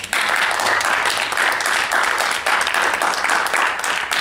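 A small group of people applauding, a dense patter of many hands clapping at once.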